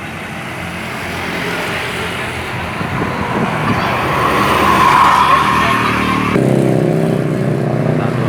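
A bus passing close by without sounding its horn. Engine and road noise build up to their loudest about five seconds in, and the engine note changes to a lower steady drone about six seconds in.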